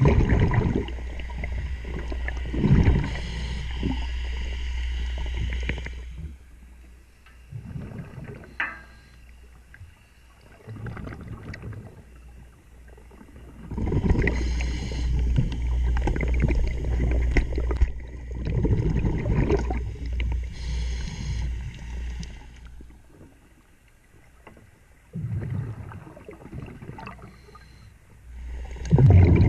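Underwater sound during a diver's propeller removal: several-second rushes of rumbling, bubbling noise from the scuba regulator's exhaust, alternating with quieter spells that hold a few sharp knocks of tools on the running gear.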